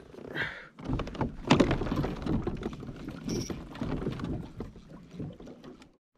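Hobie kayak on the water: water sloshing with knocks and bumps against the hull, starting about a second in and cutting off abruptly near the end.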